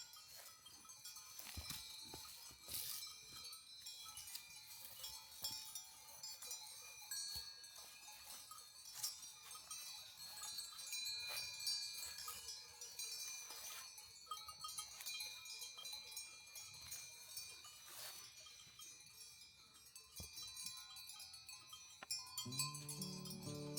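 Faint tinkling of bells worn by grazing livestock, with scattered light clicks. Background music comes in near the end.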